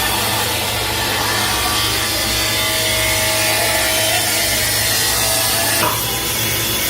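Power tool working steel: a loud, continuous cutting noise over a steady motor hum, which changes abruptly about six seconds in.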